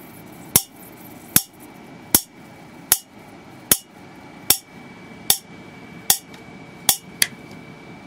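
High-voltage sparks popping across a water-drop-triggered spark gap fed by a flyback supply and capacitor bank: each falling water droplet between the electrodes sets off one sharp, loud pop. About one pop a second at an even pace, with two in quick succession near the end.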